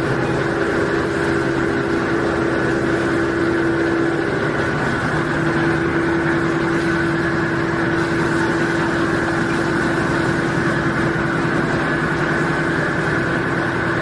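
Tissue paper log saw cutting machine running, a steady mechanical hum with a constant tone.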